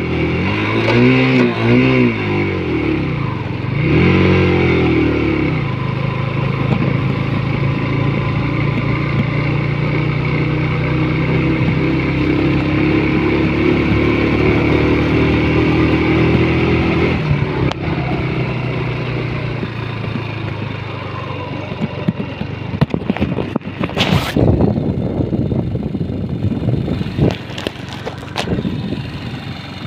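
Motorcycle engine heard from the rider's seat while riding, its pitch rising and falling with the throttle for the first few seconds, then climbing slowly and steadily. About halfway through, the engine note drops away, leaving wind and road noise, with a sharp knock about three-quarters of the way through.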